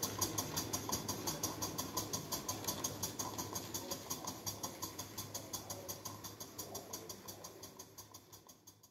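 Live-steam model stationary engine running, with a quick, even beat of exhaust puffs, about five a second, over a steady low hum. It fades away gradually toward the end.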